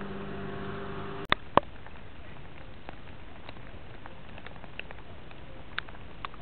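Light rain pattering, with scattered drops ticking sharply now and then. A steady low hum cuts off a little over a second in, followed by two sharp knocks.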